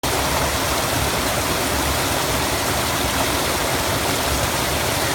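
Creek water rushing and splashing steadily.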